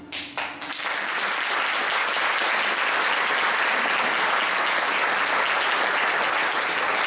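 Concert audience applauding at the end of a song: a few scattered claps at first, swelling within about a second into full, steady applause.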